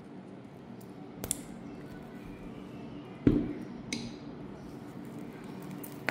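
Handling noise as a wristwatch is taken out of a case-back press: a few light clicks and taps, with one dull thump about three seconds in, over a steady low hum.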